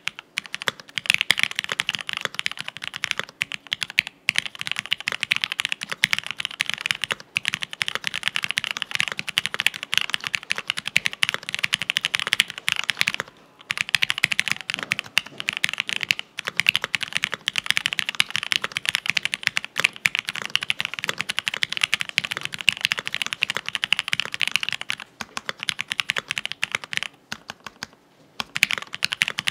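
Fast, continuous typing on a TX65 mechanical keyboard with lubed Gateron Cream linear switches on an FR4 plate and PBT keycaps: a dense run of key clacks with a creamy character, pausing briefly about 13 seconds in and again near the end.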